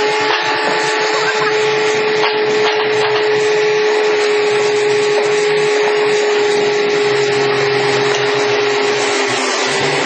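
A hydraulic excavator running its hydraulics, a steady machine hum with a high, constant whine over it.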